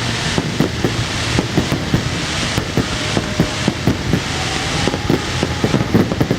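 Aerial fireworks bursting in quick succession: a dense, unbroken run of bangs and crackles.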